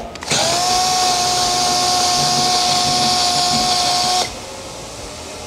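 Milwaukee M18 cordless drill driving the screw of a heavy-duty scissor jack. The motor spins up quickly, runs at a steady pitch with a high whir, and stops suddenly about four seconds in.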